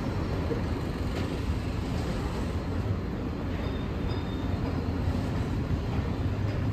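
Steady city street noise: a low rumble of traffic.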